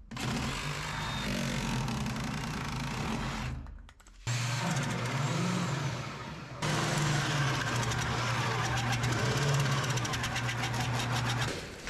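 Heavy corded drill running under load, boring a large hole through a wooden stud with a big bit. The motor hum is steady, stops briefly about four seconds in, then runs on and gets a little louder and steadier partway through.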